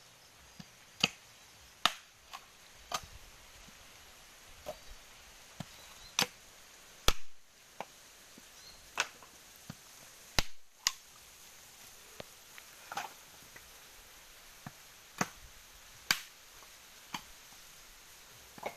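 Bolo knife striking husked coconuts to split them open for copra: a series of sharp, hard knocks, about one a second at an uneven pace, a few with a short ring after them.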